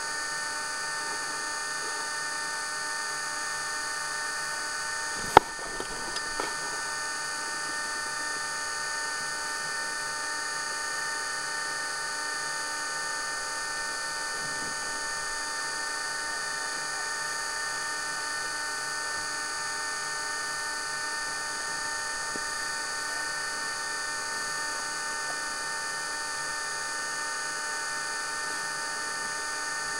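Steady electrical whine from the onboard camera itself, a set of fixed tones that never change. A single sharp knock comes about five seconds in, followed by a few faint clicks.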